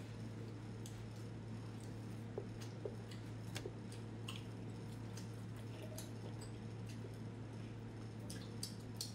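Sticky, wet mouth clicks and squishes of someone chewing braised pork, scattered and irregular. A steady low hum runs underneath.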